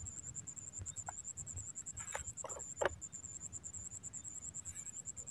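Domestic fowl clucking a few short times, about two to three seconds in, over a steady high-pitched pulsing buzz.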